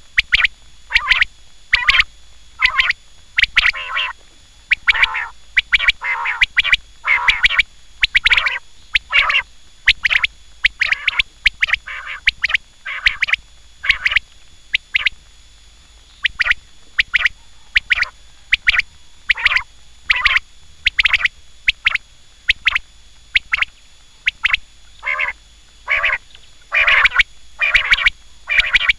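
Quail calling over and over: short, harsh calls coming about one to two a second, with brief pauses between groups.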